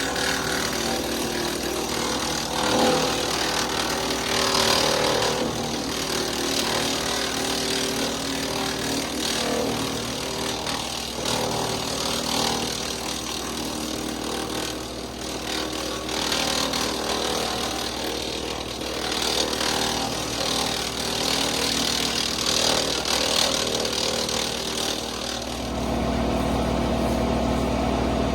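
Kubota L3901 tractor's three-cylinder diesel running steadily, driving a WoodMaxx MX-8800 PTO wood chipper, with louder noisy surges every few seconds as wood is fed through and chipped. Near the end the engine note changes to a heavier, steadier sound.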